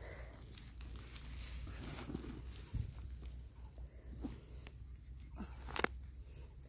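Hands scraping and pushing loose soil and dry grass around a dug-up cassava root, with a few scattered clicks and knocks of soil clods, the sharpest near the end.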